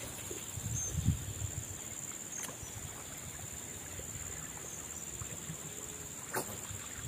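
Steady high-pitched insect drone over the low slosh of water around legs wading waist-deep, with a few sharp clicks: one at the start, one about two and a half seconds in, one near the end.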